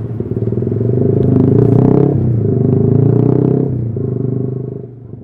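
Yamaha R15 V3's 155 cc single-cylinder engine running through a custom exhaust, with the revs changing in steps: rising about a second in, dropping about two seconds in and again just before four seconds, then fading near the end.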